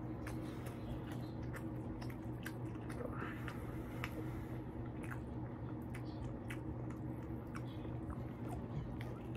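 Close-up chewing and biting of a grilled ham-and-egg sandwich, with frequent short wet mouth clicks and smacks. A steady low hum runs underneath.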